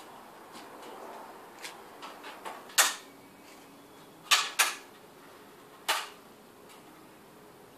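Sharp knocks from demolition work on an old timber pergola and deck. One loud strike about three seconds in, a quick pair around four and a half seconds, and another near six seconds, with lighter taps and clicks between.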